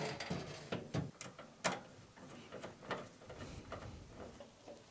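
Prime TX-650 power supply unit being seated into a steel PC case: a series of sharp knocks and clicks of metal on metal, the loudest about a second and a half in.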